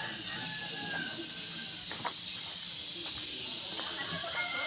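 Steady high-pitched chorus of insects, with a few faint thin calls and a single click about two seconds in.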